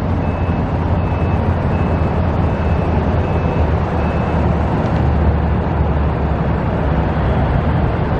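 Steady low vehicle rumble, with a backup alarm beeping at a steady pace, about once every two-thirds of a second. The beeping stops a little over four seconds in.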